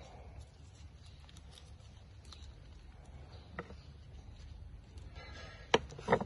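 Soft handling of a folded banana leaf, then two sharp knocks of a cleaver blade on a wooden stump chopping block near the end.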